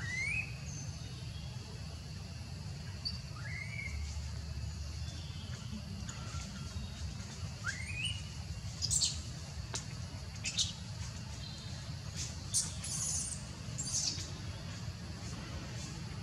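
Birds chirping in forest: a few short rising whistles spaced several seconds apart, and a run of brief high chirps in the second half, over a steady low background hum.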